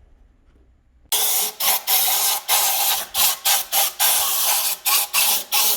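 Compressed-air blow gun blasting in short repeated bursts, about two a second, starting about a second in, blowing sanding residue out of an engine block.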